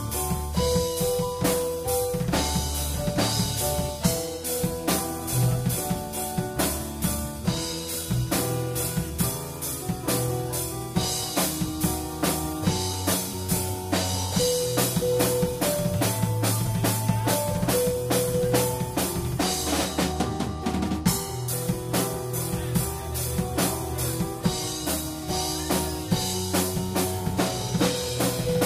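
Band playing live: a drum kit keeps a steady beat under guitar and a line of held melodic notes.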